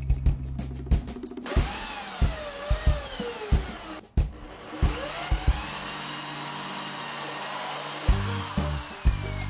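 Cordless drill boring a hole into the solar panel's aluminium frame through a hinge, in two runs: the motor whine rises and dips with the trigger, breaks off about four seconds in, then rises again and holds steady.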